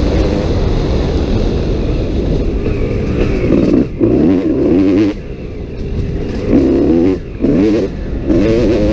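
Kawasaki KX250 dirt bike engine revving hard in repeated bursts, the pitch climbing with each burst, the throttle snapped shut briefly about four, five and seven seconds in.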